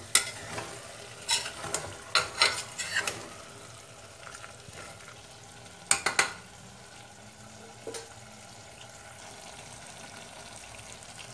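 Mutton curry frying in an open pressure cooker with a steady sizzle, while a spoon stirring it scrapes and clatters against the pot in short clusters: several in the first three seconds, a burst about six seconds in and one near eight seconds.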